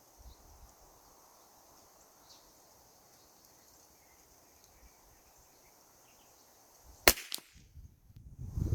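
A single .22 rimfire shot from a Keystone Cricket 722PT bolt-action rifle, sharp and short, about seven seconds in after a long quiet stretch.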